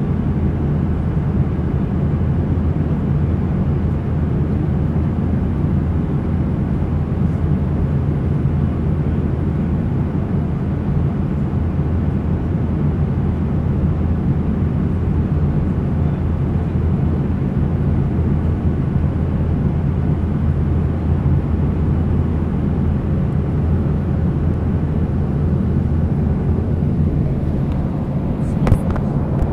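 Airliner cabin noise in flight: a steady, unchanging low rumble of the engines and airflow heard from inside the passenger cabin. A couple of faint clicks sound near the end.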